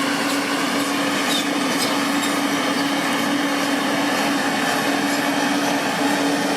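Steady mechanical hum with a constant low tone under an even rushing noise, and a few faint clicks.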